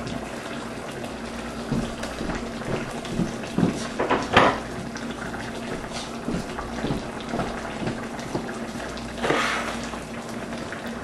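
Fish and tomato sauce simmering in a wok, bubbling with irregular gurgling pops over a steady low hum. A louder pop comes about four seconds in, and a longer bubbling swell near the end.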